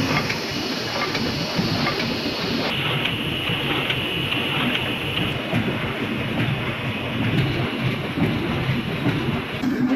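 Old sheet-fed cylinder press running, a steady dense mechanical clatter as carton sheets feed through it. The noise changes character abruptly a few times.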